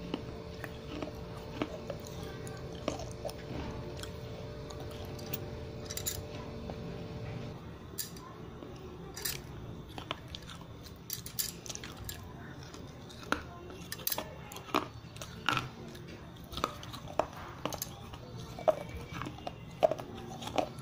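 Crunching bites and chewing of brittle fired clay from a wet clay pot, as sharp separate cracks that become frequent from about eight seconds in and grow louder toward the end. A steady hum sits under the first seven seconds and then stops.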